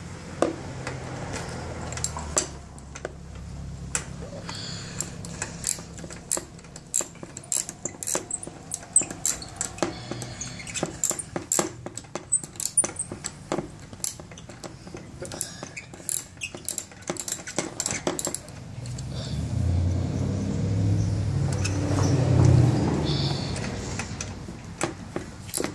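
Irregular metallic clicks and clinks of a socket wrench loosening the cylinder head bolts on a small lawnmower engine. A low rumble swells up for a few seconds near the end.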